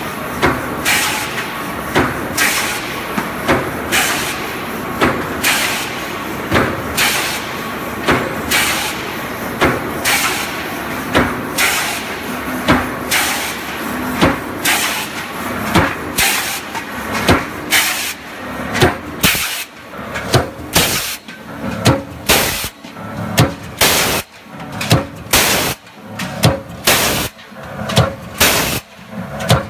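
Automatic double-action mechanical power press blanking and deep-drawing stainless steel strip fed from a coil. Each stroke is a sharp knock, repeating evenly at about one and a half a second and then about two a second, over steady machine noise. The knocks are crisper and more distinct in the last third.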